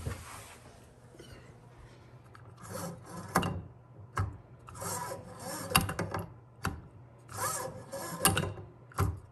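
Pull-down kitchen faucet's spray hose being pulled out through the spout and let back in about three times, a rubbing, rasping slide, with sharp clicks in between as the spray head knocks and seats. The hose is being worked to check that it travels freely with its new counterweight.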